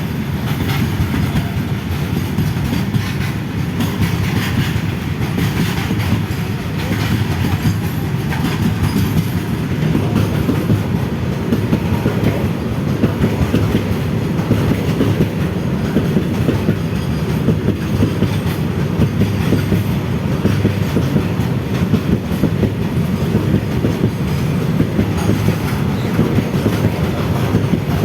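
Indian Railways container goods train rolling past, its wagon wheels clattering steadily over the rail joints.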